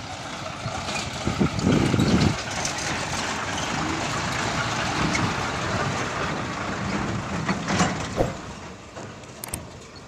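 Diesel tipper lorry's engine running as the truck drives past and pulls away, swelling briefly about two seconds in and fading near the end.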